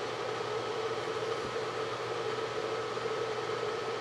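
Steady background hum and hiss with no change in level, like a fan or other small machine running.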